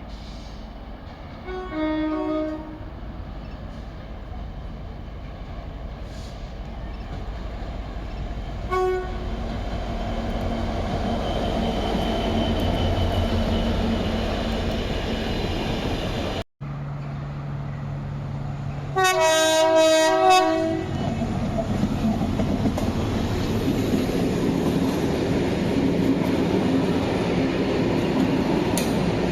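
Train horns sounding over the steady running noise of a train on the rails. There is a short two-note blast, high note then low, early on; a brief single note about nine seconds in; and a longer, louder series of blasts two-thirds of the way through.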